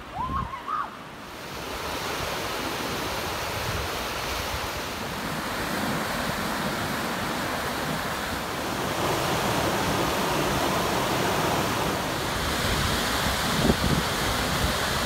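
Yosemite Creek's whitewater rushing and cascading over granite, a steady rush of water that swells a little in the first couple of seconds.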